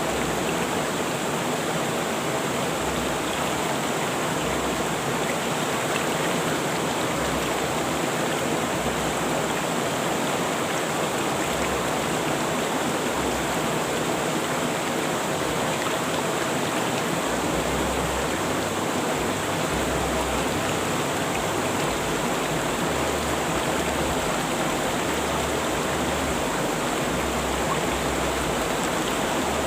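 River water rushing and splashing over rocks, a steady full hiss of flowing water.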